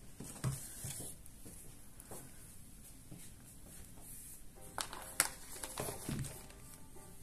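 Faint handling noise as a heat gun is picked up off a newspaper-covered table: a few light knocks and clicks, the sharpest a little after halfway. Quiet music starts in the second half.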